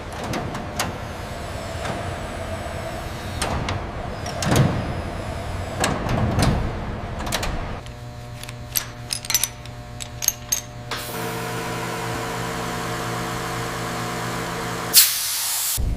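Machine noise: a run of irregular clicks and knocks over a steady bed, then a steady hum of several tones from about eight seconds in. Quick clicks come in the middle, and a short loud hiss comes near the end.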